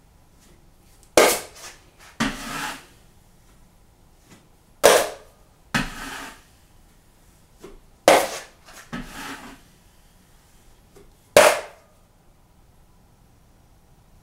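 Drywall taping knife working joint compound: four sharp metal clacks about three seconds apart, each followed within a second by a softer scraping stroke, as mud is loaded from the pan and spread.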